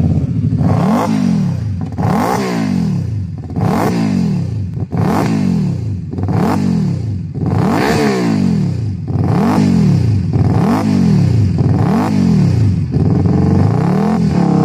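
Benda V4 500cc motorcycle engine being revved repeatedly while the bike stands still: about ten throttle blips, each rising in pitch and falling back, one every second and a half or so.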